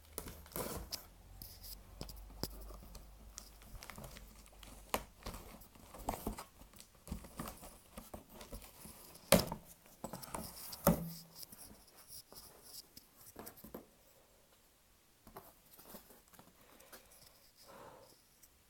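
A shipping package being opened by hand: packing tearing and crinkling with irregular handling clicks and knocks, two sharper knocks about nine and eleven seconds in.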